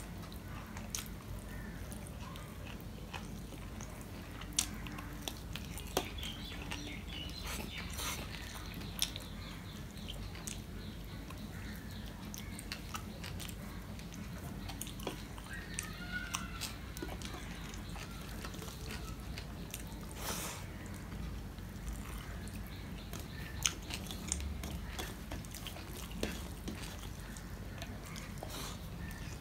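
Eating rice and curry by hand: fingers mixing wet food on a steel plate, and chewing. It is heard as scattered short clicks and smacks, a few sharper than the rest, over a steady low hum.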